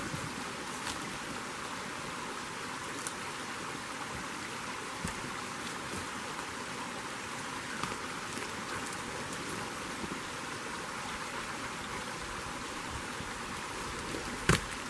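Steady rush of running water from a small bush creek, with a few faint knocks and rustles from a deer carcass being handled, and one sharp knock near the end.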